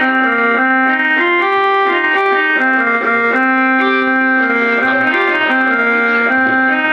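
Melody on a keyboard instrument, held organ-like notes stepping up and down in pitch.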